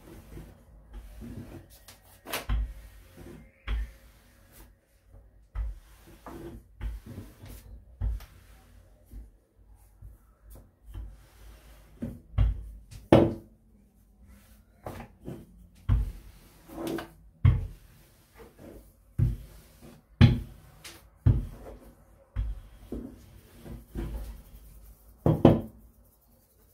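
Irregular knocks and thumps, with softer rubbing between them: pizza-style dough being worked and rolled out thin with a rolling pin on a board.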